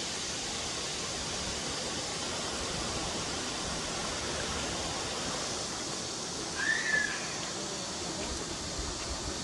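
Mountain stream water rushing steadily. About two thirds of the way in, a brief high chirp rises and falls once above it.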